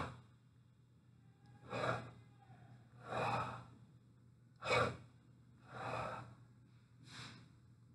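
A person breathing faintly close to a microphone: five soft breaths, one every second or so, over a faint steady low hum.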